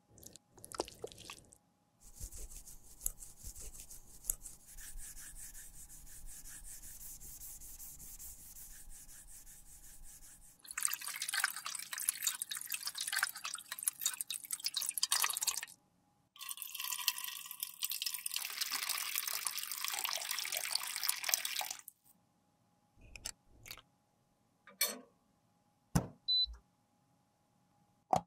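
Water running and splashing over a plastic compact case as it is rinsed, with two loud spells of several seconds each after a quieter steady stretch. Near the end come a few light clicks and taps.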